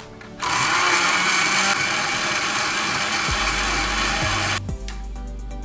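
Countertop blender running, puréeing tomatoes, garlic, chillies and coriander with a little water into a salsa. It starts about half a second in, runs steadily for about four seconds, and cuts off suddenly near the end.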